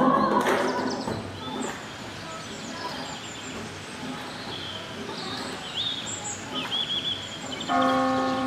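Songbirds chirping over light outdoor ambience, after choir singing fades out in the first second. Near the end a church bell is struck and rings on, the loudest sound here.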